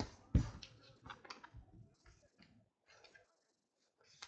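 Trading cards being handled and set down on a card stack: a sharp tap about half a second in, then a few lighter clicks and a soft rustle of cards.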